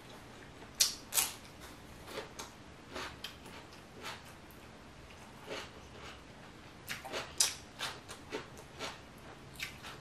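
Crunching bites of a raw cucumber spear and chewing, close to the microphone. Two loud, crisp crunches come about a second in, then softer chewing clicks, and another run of crunches about seven seconds in.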